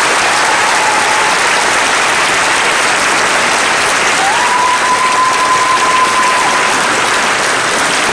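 Audience applauding and cheering, with two whistles from the crowd: a short one near the start and a longer, steady one a few seconds in.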